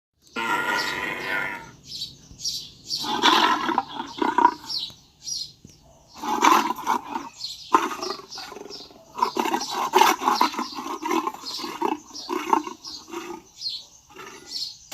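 Tiger roaring and grunting in a long run of short, repeated calls, after a brief silent break at the very start.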